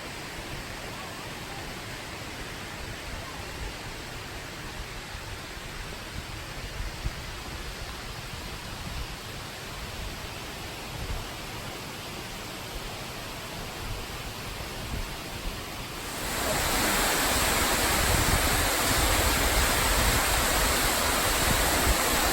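Steady rushing of falling water, an even hiss with no pitch. About 16 seconds in it jumps suddenly louder and fuller.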